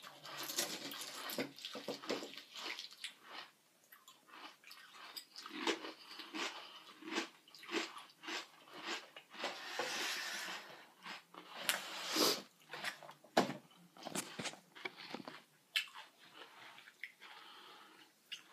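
Mouth chewing crunchy Honey Nut Frosted Flakes corn flakes: an irregular run of short crunches.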